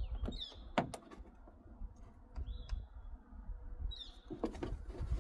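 Light clicks and knocks of small bolt hardware being handled and fitted, the sharpest about a second in. A few short, falling bird chirps are heard in the background.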